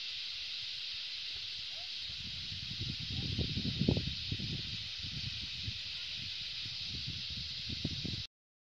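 Dense chorus of sparrows chirping in the trees, blended into a steady high shimmering hiss, with low rumbling on the microphone in the middle; the sound cuts off abruptly near the end.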